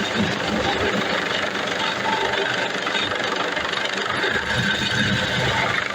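Search-and-rescue helicopter running steadily, its rotor and turbine noise continuous throughout.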